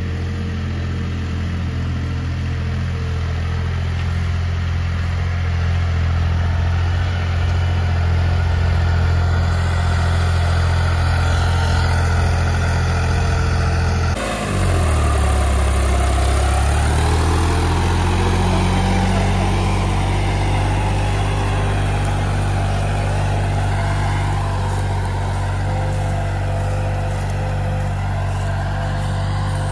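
New Holland 3630 tractor's three-cylinder diesel engine running steadily under load while it pulls a heavy disc harrow in four-wheel drive. About halfway through the sound changes abruptly, and the engine note dips for a couple of seconds, then climbs back.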